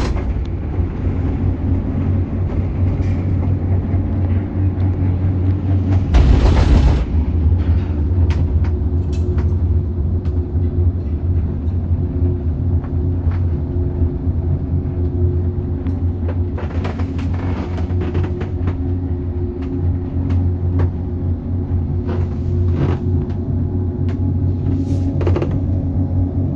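Steady low rumble and hum of a cableway gondola cabin riding along its cable. About six seconds in there is a louder surge of noise lasting about a second, and a few shorter bursts of noise follow later.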